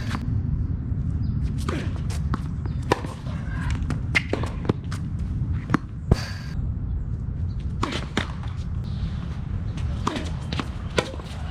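Tennis rally: sharp pops of rackets striking the ball and the ball bouncing on a hard court, at irregular intervals a second or so apart, over a steady low rumble.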